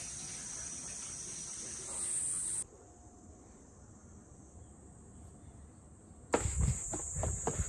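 Cicadas buzzing in a steady high drone, which cuts down sharply a few seconds in and comes back louder near the end, joined by close thumps and rustles of someone walking with the microphone.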